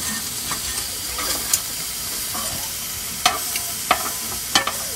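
Food sizzling steadily on a grill, with four sharp clicks spread through it.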